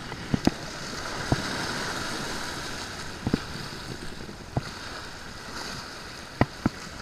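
Small waves washing and breaking against jetty rocks, swelling for a couple of seconds and then easing, with about seven sharp clicks scattered through.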